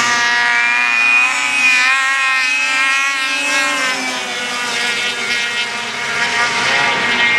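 Several racing snowmobiles accelerating hard down a drag strip, engines at high revs with their pitch wavering. The run opens with a loud launch, and the sound rises again near the end.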